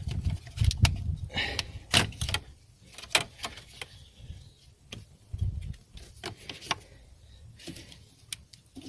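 Irregular clicks, knocks and light clatter of tools and engine parts being handled, as covers are unclipped and cables are pulled aside.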